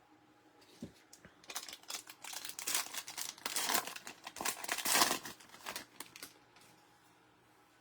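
Plastic trading-card pack wrapper being torn open and crinkled by hand. There are a few light clicks first, then about four and a half seconds of dense crackling that is loudest near the middle and dies away about six seconds in.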